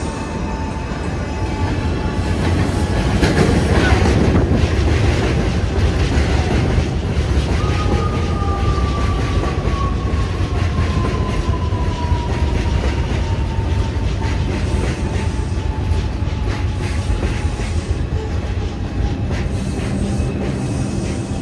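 New York City subway train running through a station, its wheels clacking and rumbling on the rails, loudest about four seconds in. A long, gently falling whine runs through the middle of it as the train slows.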